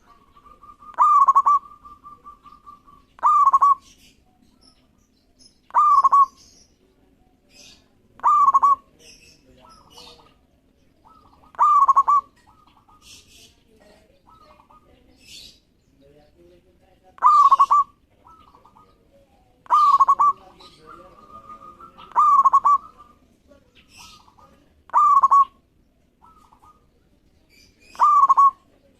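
Zebra dove (perkutut) singing its repeated cooing song, about ten loud phrases spaced two to three seconds apart, with a longer pause midway. Fainter high chirps sound between the phrases.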